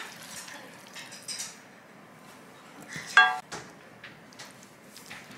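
Metal cutlery clinking against dishes: a few light taps, then one sharp clink about three seconds in that rings briefly.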